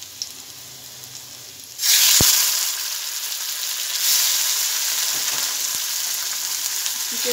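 Raw boneless chicken pieces hitting hot oil and garlic in a kadai: a faint sizzle jumps suddenly to a loud sizzle about two seconds in, with a single knock, then sizzles steadily and swells again about four seconds in as the pieces are stirred.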